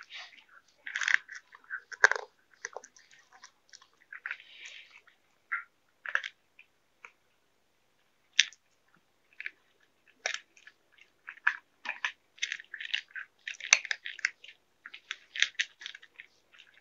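Cats eating food from plastic bowls, the nearest one chewing close to the microphone: quick irregular bites, sparse at first and much more frequent from about ten seconds in.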